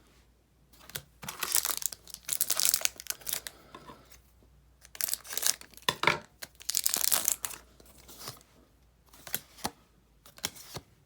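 A Dragon Ball Z CCG booster pack being torn open: two stretches of wrapper ripping and crinkling, then a few short clicks near the end.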